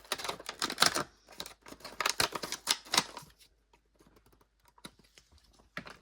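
Hands tearing open and crinkling plastic blind-bag toy packaging: a quick run of sharp crackles and clicks for about three seconds, thinning to a few faint rustles.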